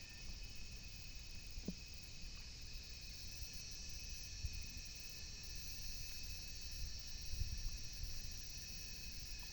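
Outdoor ambience: a steady high-pitched drone of insects, with low wind rumble on the microphone and one brief falling squeak about two seconds in.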